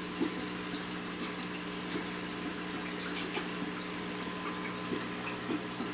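Steady trickling of aquarium water under a low electrical hum, with faint scattered ticks.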